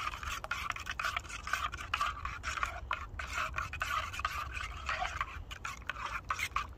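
A metal spoon stirring a drink in a stainless steel camping mug, scraping round the inside with a run of quick clinks against the metal.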